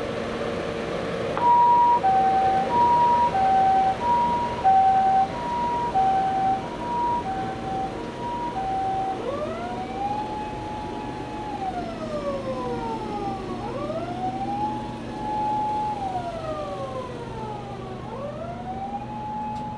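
Toyota HiAce High-Medic ambulance's electronic siren under test. First comes the two-note hi-lo "pee-po" tone, switching between its high and low notes about every 0.6 s. About 9 seconds in it changes to a wail that rises, holds briefly and falls, each cycle taking about four seconds. A steady low hum runs underneath.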